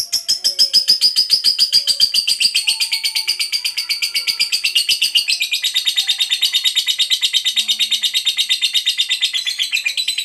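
Fischer's lovebird giving a long unbroken chattering trill ('ngekek panjang'): rapid high notes, about ten a second, that drop a step in pitch about halfway through.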